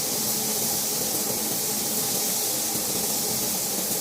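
Compressed-air paint spray gun spraying a coat of paint onto a car bumper: a steady hiss.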